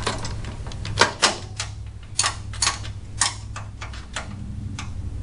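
Irregular sharp metal clicks and clinks of washers and nylock nuts being fitted onto bracket bolts by hand, over a steady low hum.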